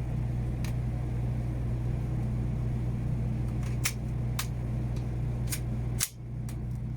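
A steady low mechanical hum, like an engine running nearby, with a few faint clicks and taps scattered through it. No gunshots.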